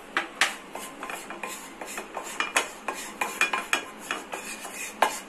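Wooden spatula stirring spice powder into oil in a nonstick frying pan: irregular scrapes and taps against the pan, several a second, with a sharper knock near the end.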